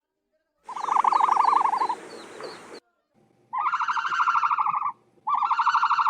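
Ostrich calling: three rapidly pulsed, buzzing calls, each one to two seconds long, with short silences between them.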